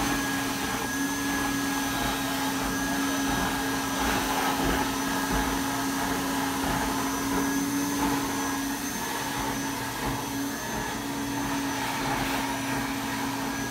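Plush-toy stuffing machine's blower motor running steadily, a vacuum-like rush of air with a constant hum.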